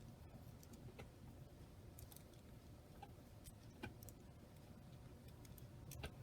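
Faint, irregular clicks of a miniature Rubik's cube's layers being turned during a scramble; the tiny cube doesn't turn super well.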